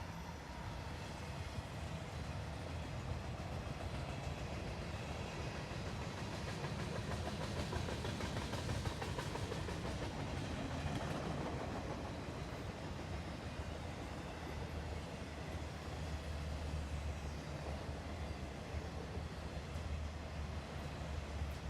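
Freight train cars rolling past on the rails: a steady noise of wheels on track, swelling a little midway.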